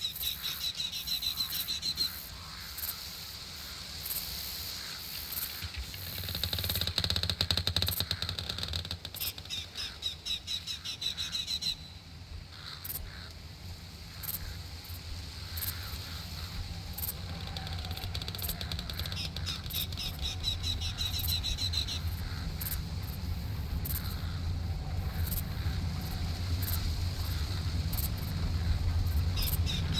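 Summer outdoor nature ambience: runs of fast, high-pitched chirping trills come and go over a steady low rumble.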